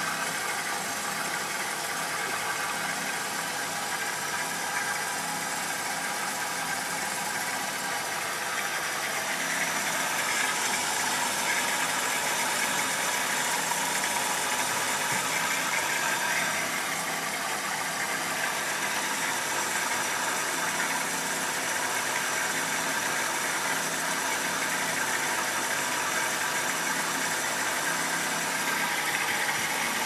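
Philips SL 202 front-loading washing machine running, its drum turning the laundry: a steady mechanical running noise that grows a little louder about ten seconds in and eases back after about six seconds.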